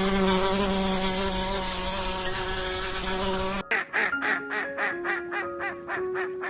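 Steady, even-pitched buzzing like a flying insect, which cuts off abruptly after about three and a half seconds. Rapid repeated quack-like calls follow, about three to four a second, over music.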